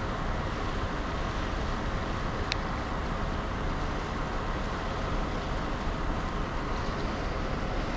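Steady rush and rumble of a ferry under way, heard from its deck: wind buffeting the microphone over the noise of the ship moving through the water. A brief high click about two and a half seconds in.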